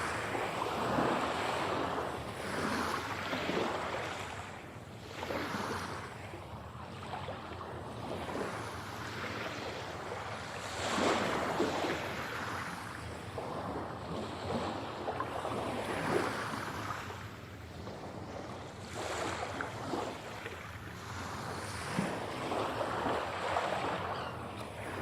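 Sea waves breaking and washing in, in slow surges every few seconds. The recording is 8D-processed so that the surf pans around the listener.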